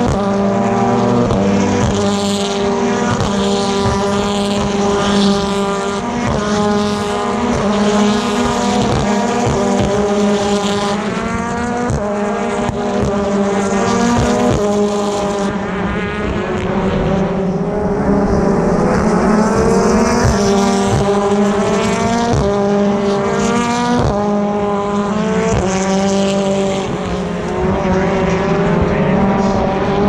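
A pack of BTCC touring cars, turbocharged 2.0-litre four-cylinder engines, accelerating out of a hairpin one after another, each engine rising in pitch and dropping back at the upshifts as the cars pass in a continuous stream.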